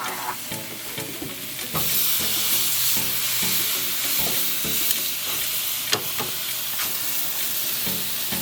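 Marinated beef short ribs sizzling on a hot grill, a steady hiss that gets louder about two seconds in, with a few sharp clicks around the middle. A strong sizzle like this shows the grill is hot enough.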